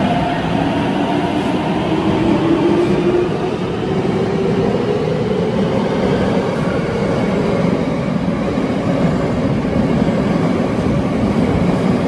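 Tokyo Metro 8000 series subway train pulling out along an underground station platform. Its motors whine up in pitch as it gathers speed over a steady rumble of wheels on rail.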